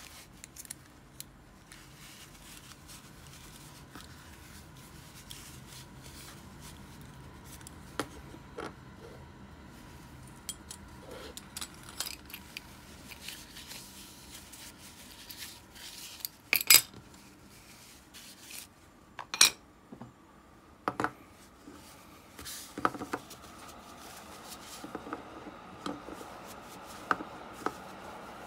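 Aluminium side plates and small metal parts of an Ambassadeur 5500C baitcasting reel being rubbed clean with a tissue, with scattered metallic clinks and taps as parts are handled and set down. A few sharp clicks come in the middle and are the loudest sounds.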